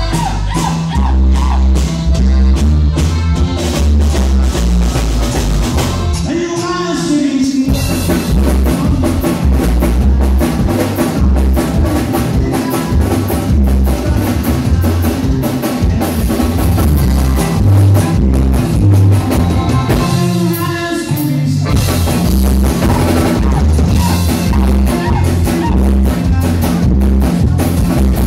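Norteño band playing live: button accordion, twelve-string bajo sexto, electric bass and drum kit, loud and driving. The bass and drums drop out briefly twice, about a quarter of the way in and again about two-thirds through.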